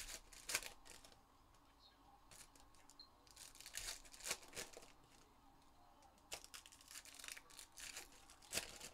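Trading-card pack wrappers crinkling and tearing as packs are opened, in three clusters of short crackles.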